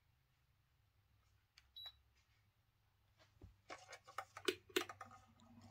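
A short electronic beep from the ceiling fan's remote-control receiver taking a command, then a run of faint clicks and knocks.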